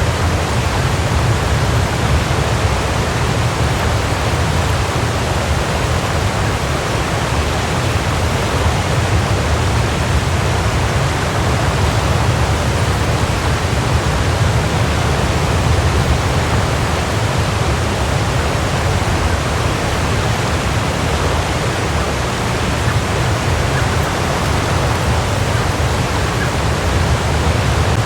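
Waterfall: water falling and splashing in a steady, unbroken rush with a deep low rumble.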